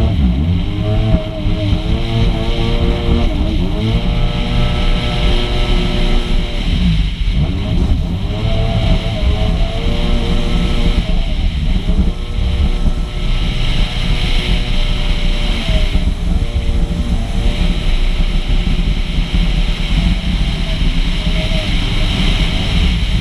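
A two-stroke Yamaha personal watercraft's engine runs at speed, with its pitch dropping and climbing back several times as the throttle changes. A heavy rush of wind and water noise runs under it.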